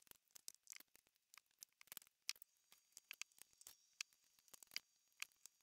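Faint, irregular small clicks and ticks of a hand installation driver turning screw-in metal traction studs into a boot's rubber sole.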